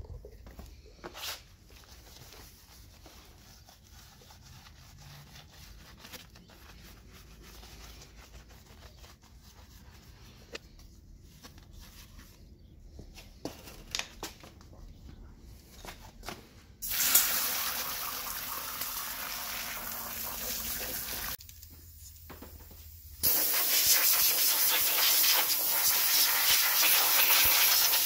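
Liquid spraying onto a wheel with a steady hiss, once for about four seconds and again louder from about six seconds before the end, while the wheel is washed during its deep cleaning. Before that come only faint scattered clicks and handling noises.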